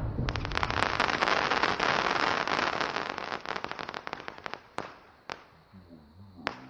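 Crackling stars of a Sony Fireworks Golden Chip sky shot after the shell's burst: a dense crackle of many quick pops for about four seconds, thinning out and fading, then three last single pops.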